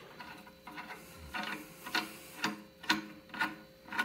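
A steel bolt being spun down by hand through the threaded crossbar of a bearing puller, giving light metallic ticks at an even rhythm of about two a second. The ticks grow clearer after about a second.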